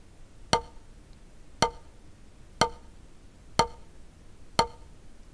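Drumstick striking a drum practice pad in slow single full strokes, five evenly spaced hits about one a second, each with a brief ringing tone.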